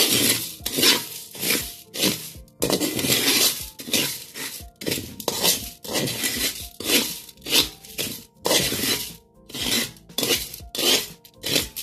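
Spatula scraping and stirring crisp toasted leftover rice (tutong) in a pan, a rhythmic scrape about one and a half times a second, as the sugar added to it melts to make pop rice.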